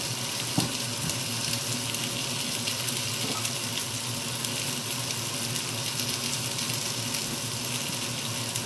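Chicken pieces gently sizzling as they brown in a frying pan turned down to a lower heat: a steady hiss with a few faint ticks.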